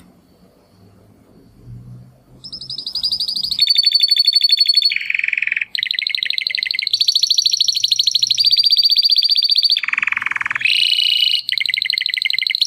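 Domestic canary singing in rapid trills, each roll of quick repeated notes switching to a new pitch every second or two. The song starts about two and a half seconds in, after faint low background noise.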